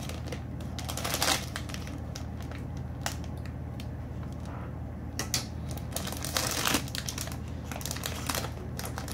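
Foil blind bag crinkling and crackling as it is handled and torn open by hand, in irregular spells: heaviest in the first second and a half, quieter through the middle, then picking up again near the end.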